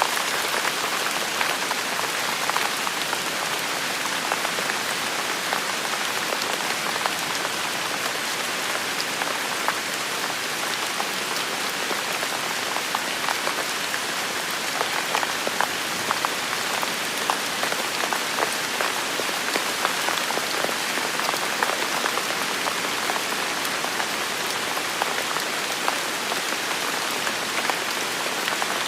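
Steady rain falling on hard surfaces, a dense even hiss with many individual drops pattering and ticking.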